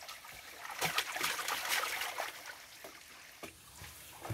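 Shallow water trickling and splashing, with small scattered crackles that are busiest for about a second and a half near the start.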